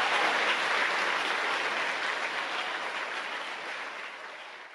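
Audience applauding, a steady clapping that fades out gradually toward the end.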